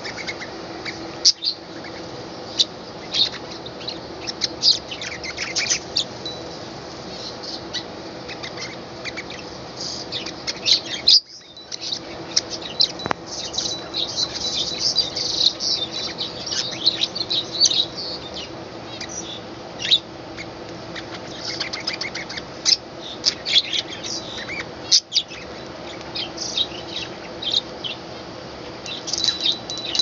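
A flock of caged budgerigars chattering: many quick, overlapping high chirps and warbles, busiest around the middle.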